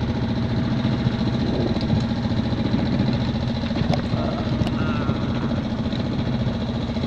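Sailboat's Bukh inboard marine diesel engine running at a steady speed under way, a low, even drone. The owner says it runs as good as new since its repair.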